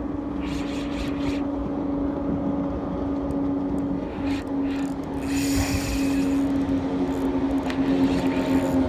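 Boat engine running steadily, a low hum that holds one pitch, with short hissy rushes of wind or water about half a second in and again around five seconds in.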